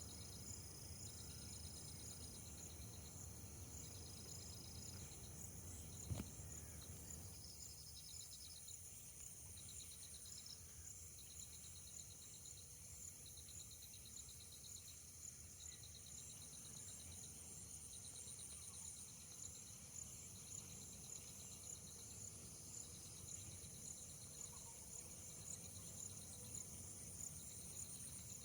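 Faint insect chorus: a steady high-pitched whine with short trains of rapid chirps repeating every second or two. A single brief knock about six seconds in.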